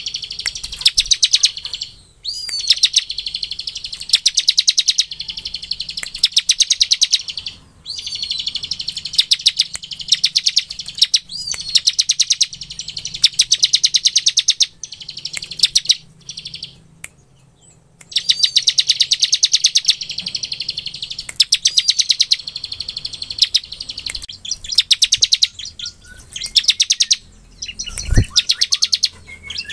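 Ciblek (prinia) singing its rapid rattling 'ngebren' song: bursts of very fast ticking notes a second or two long, repeated with short pauses, some bursts opening with a short rising note. A low thump near the end as the caged bird flutters.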